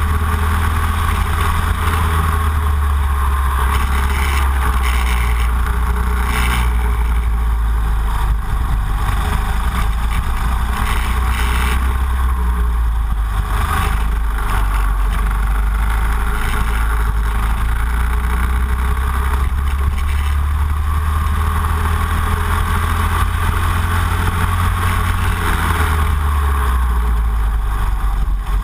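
Racing kart engine running at speed, heard from a camera mounted on the kart, with a heavy low rumble.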